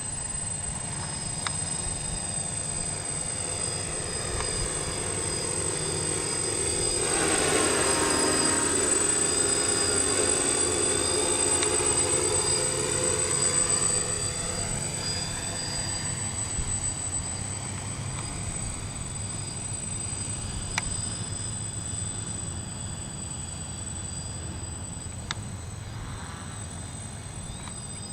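DJI F550 hexacopter's motors and propellers buzzing in flight, with a steady high whine. It grows louder about seven seconds in, with a sweeping rise-and-fall in tone as it passes close, then fades again after about fourteen seconds. The motors have bad bearings.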